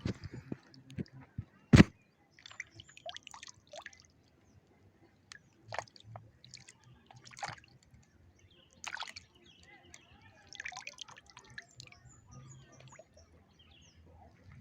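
Water splashing and dripping in short, irregular bursts around a wading angler, with one sharp click about two seconds in as the loudest sound.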